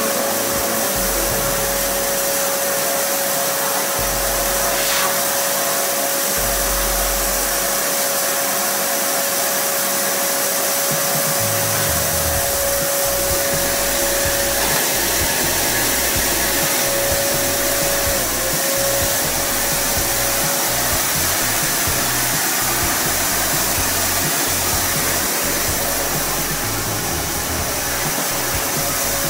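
Homstar HS VC2300 Turbo Power vacuum cleaner motor running steadily, with a constant whine over the rush of air; the pitch dips briefly about 18 seconds in.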